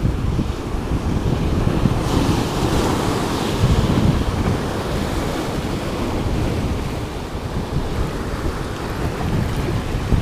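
Ocean surf breaking and washing over the rocks, swelling to a louder wash about two seconds in, with wind buffeting the microphone.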